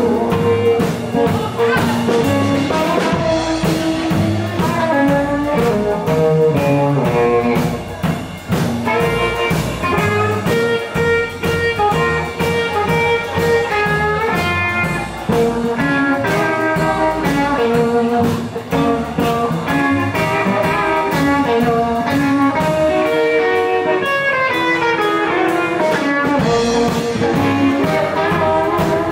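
Live band playing a bluesy number, guitar to the fore over a drum kit.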